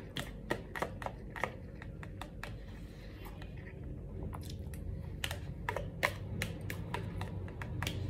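Metal spoon clicking and scraping against a thin plastic takeaway container as the last of the rice is scooped out: a quick run of sharp taps in the first couple of seconds, then scattered taps around the middle, over a steady low hum.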